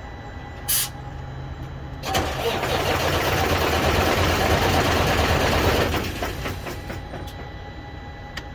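Heavy truck's diesel engine running at a low steady idle. A sharp click comes about a second in, then a loud hiss of air lasting about four seconds.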